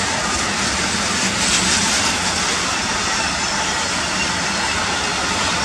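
Container freight train passing: the steady, unbroken noise of its flat wagons' steel wheels rolling on the rails.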